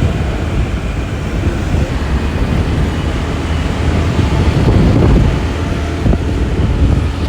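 Steady low rumble and road noise of a moving vehicle, with wind buffeting the microphone.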